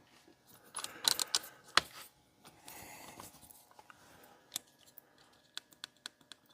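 Scattered light clicks and taps of small objects being handled on a workbench, with a brief rustle partway through and a quick run of small clicks near the end.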